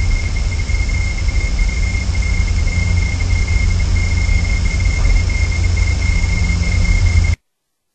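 Steady noise from an outdoor nest-cam microphone: a low rumble under a thin, steady high whine. The sound cuts off abruptly to dead silence about seven seconds in, a dropout in the stream's audio.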